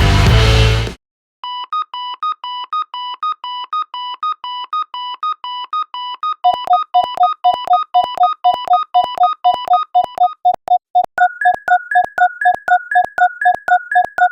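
Electronic railroad crossing alarm tones ringing: a two-tone ding alternating about twice a second. About six seconds in a second, lower and faster crossing alarm joins, and about eleven seconds in a third, higher one that drops in pitch with each stroke. A burst of rock music cuts off about a second in, before the dings start.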